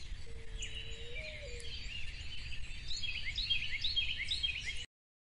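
Small birds chirping in quick repeated notes over a low outdoor rumble; the sound cuts off abruptly near the end.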